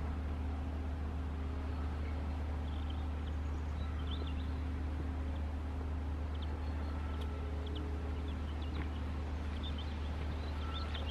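Outdoor background of a steady low rumble, with small birds chirping in short high notes now and then from a few seconds in.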